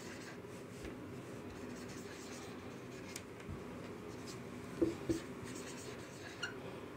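Marker pen writing on a whiteboard: faint strokes and squeaks as words are written, with two short louder ticks about five seconds in.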